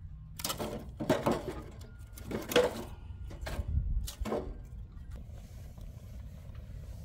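Dry split firewood knocking and clattering against other logs and the iron ring of a fire basket as the pieces are stacked, five or so sharp knocks over the first four and a half seconds, over a steady low rumble.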